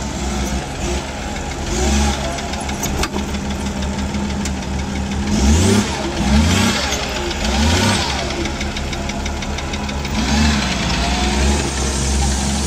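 Off-road competition vehicle's engine running at a low idle, blipped up in a few short revs as it crawls over a steep rocky step, most of them between about five and eight seconds in and one more near ten seconds.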